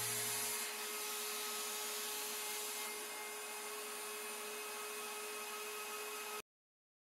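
Workshop machinery running: a steady hiss with a faint steady hum. It cuts off suddenly near the end.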